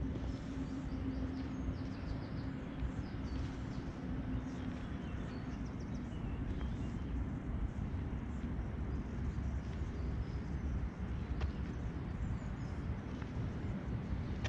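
Outdoor background noise: a steady low rumble of distant traffic, with faint bird chirps now and then.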